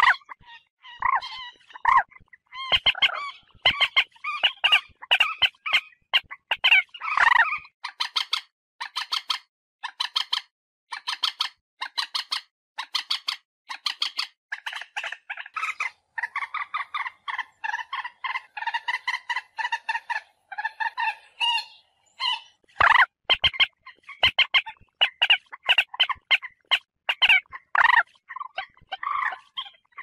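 Common moorhen calling over and over: a string of short, quick notes and longer calls, with a stretch of fast, evenly spaced notes about a third of the way in.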